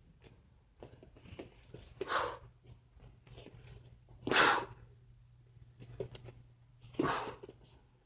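Short, sharp exhaled breaths from a person performing a taekwondo form, three times about two and a half seconds apart, with faint foot scuffs between and a low steady hum.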